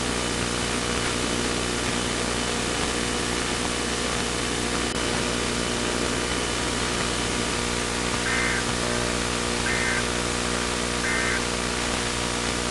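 Steady hiss with a drone of hum under it. About eight seconds in come three short two-tone digital data bursts, evenly spaced about a second and a half apart: the Emergency Alert System end-of-message signal.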